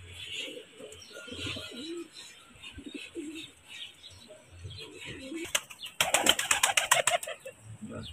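Domestic pigeons cooing in low, repeated rising-and-falling calls, then about six seconds in a loud flurry of rapid wingbeats as a pigeon takes off or flaps close by.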